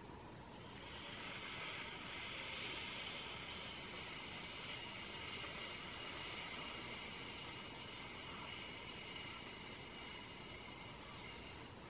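A woman's long, steady 'sssss' hiss on a slow out-breath, the Qi Gong healing sound of the lungs, projected outward. It starts about a second in and eases off slightly near the end.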